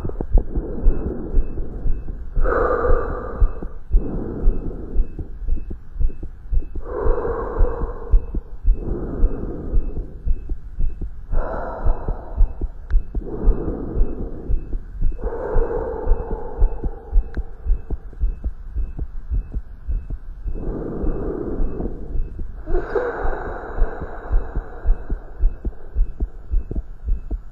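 Human heart sounds heard through a stethoscope during exercise: a fast, regular heartbeat. A louder rush of breath noise comes every four seconds or so.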